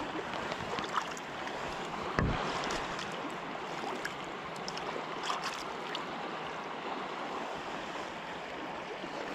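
Steady rush of river water flowing past, with a few faint clicks and a dull bump about two seconds in.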